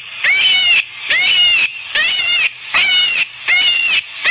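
An animal calling in a steady series of five short, high-pitched calls, a little more than one a second, each rising and then falling in pitch.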